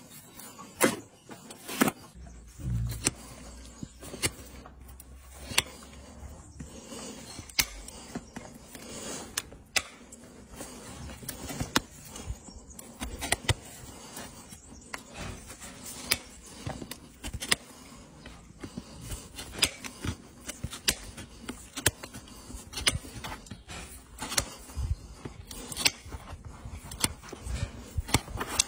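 A farrier's hoof knife and hoof nippers cutting and scraping a horse's hoof: a long string of sharp, irregular clicks and scrapes, one or two a second.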